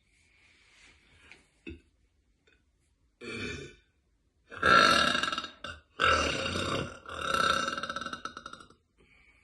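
A woman belching: a short burp about three seconds in, then a long, loud burp drawn out in three parts with only brief breaks between them.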